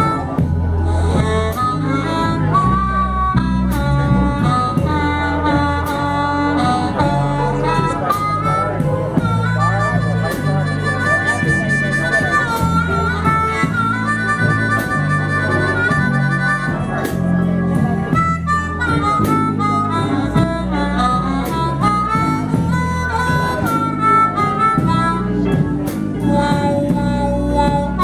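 Live blues band playing an instrumental break, with a harmonica wailing the lead over bass and drums.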